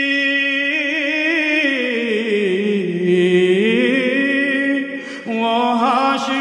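An elderly man's solo voice, with no instruments, singing an Urdu naat in praise of the Prophet and drawing one word out into a long wavering melisma. The pitch sinks through the middle, climbs back, then breaks briefly for a breath about five seconds in before the line carries on.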